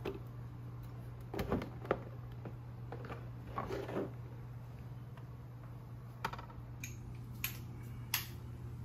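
Plastic body cover of a Suzuki Burgman 400 scooter being worked loose and lifted off: scattered clicks and knocks of plastic as its tabs release, over a steady low hum.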